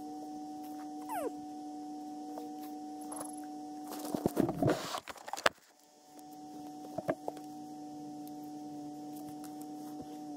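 A steady low electrical hum with two steady pitches. About four seconds in, a second and a half of clattering and rustling comes as an ice-fishing tip-up is handled beside the hole.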